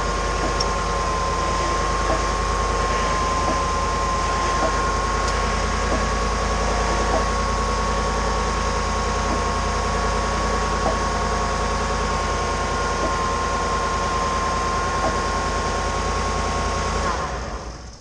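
2014 GMC truck idling at a standstill with a steady hum and a high whine, while the steering under load gives faint, irregular pops every second or two. The popping appeared after the electric power steering motor was replaced, and its cause is unknown. The sound cuts off suddenly near the end.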